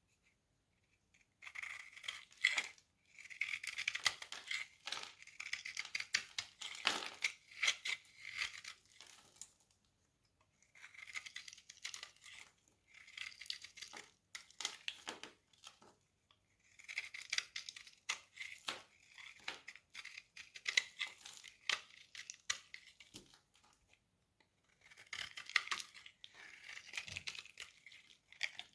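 A knife cutting through dry soap with a crisp, crackling scrape full of tiny clicks, in four runs of strokes with short pauses between them.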